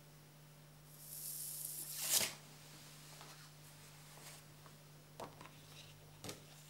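A paper card slid across a wooden tabletop and picked up: a scraping rustle of about a second that ends in a sharp flick. A few light taps and rustles of handling follow.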